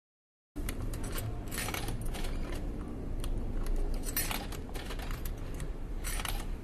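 Coins jingling and clicking at a vending machine, a run of small irregular metallic clinks over the machine's low steady hum, starting suddenly about half a second in.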